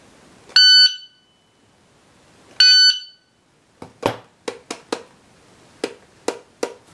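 Competition Electronics Pocket Pro II shot timer giving its loud start beep twice, about two seconds apart, each a steady high tone lasting under half a second. From about four seconds in comes an irregular run of sharp hand smacks, which the timer picks up and logs as shots.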